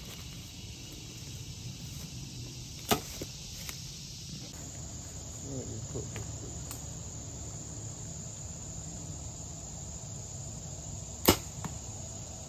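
Two compound bow shots, each a sharp snap of the string at release, about eight seconds apart, the second one louder. A steady high insect buzz starts about four seconds in.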